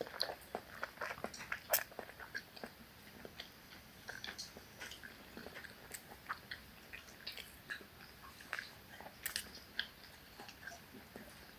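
A person chewing a mouthful of ugali and managu greens: irregular small smacks and clicks of eating, at low level.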